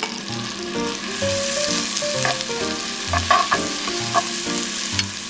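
Butter sizzling in a frying pan as celery leaf paste is stirred through it with metal tongs, with a few light clicks of the tongs against the pan.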